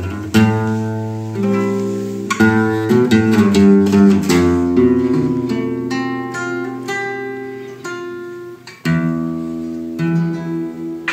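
Acoustic guitar playing the instrumental introduction of an aire de chacarera, Argentine folk rhythm, in plucked notes and strums. There is a brief break about nine seconds in before a new strum.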